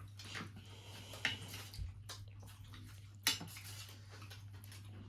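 Dishes and utensils clinking and scraping while people eat, with a few sharp clinks, the loudest about three seconds in, over a steady low hum.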